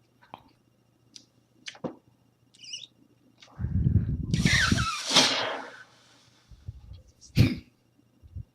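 One loud sneeze about four seconds in, its cry falling in pitch, with a few short clicks before it and a sharp knock near the end.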